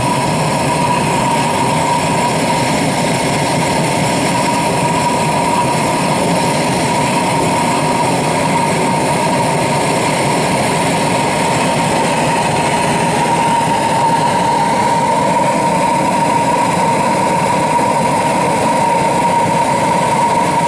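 Small model pulse jet engine, a steel tube on a stand, running with a loud, steady, high-pitched buzz at one unchanging pitch.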